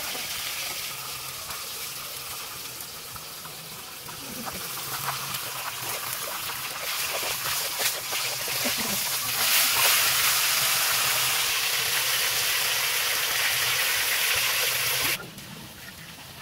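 Fish frying in hot oil in a steel wok over a wood fire: a steady sizzle with a few light clinks of a metal ladle. The sizzle grows louder about nine seconds in and cuts off sharply near the end.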